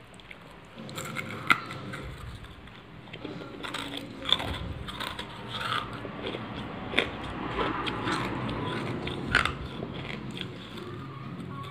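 Close-miked biting and chewing of a dry, crumbly lump of red khadi (baked red clay): several sharp crunchy bites a couple of seconds apart, with gritty scraping and chewing between them.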